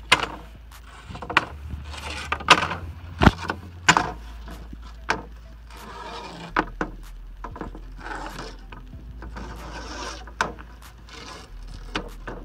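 Old aluminum window-screen mesh being yanked out of its aluminum frame: the metal mesh crinkles and rustles, with scattered sharp clicks and knocks as it catches and the frame shifts on the wooden table.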